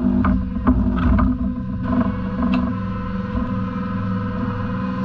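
Lobster boat's engine running steadily, with several sharp knocks and rattles in the first second or so as a lobster pot is handled over the side.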